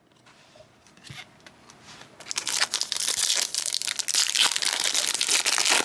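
Foil wrapper of a baseball card pack crinkling as it is handled and torn open. The crinkling starts about two seconds in after a quiet spell with a few light clicks, and carries on dense and crackly.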